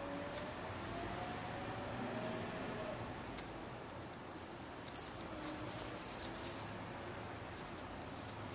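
Folded paper of a modular origami model handled and turned in the fingers: soft crinkling and rubbing of paper with scattered light ticks, strongest in the second half. A faint wavering tone sits in the background during the first few seconds.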